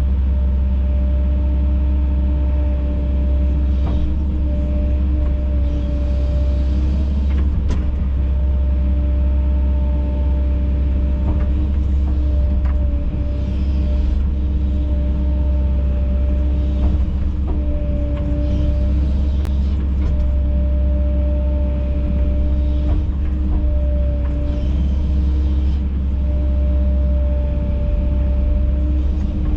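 Kobelco SK210 excavator's diesel engine running steadily under work, a deep rumble with a steady whine over it and a few faint clicks.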